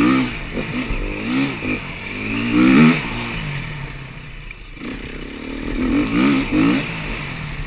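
Dirt bike engine revving under throttle on a rough trail. Its pitch rises in steps to a peak about three seconds in, drops away, then climbs again near the end.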